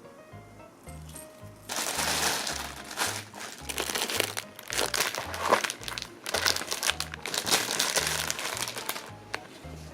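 Crinkling, rustling handling noise in quick irregular bursts, starting about two seconds in and stopping about a second before the end, over background music with a steady low beat.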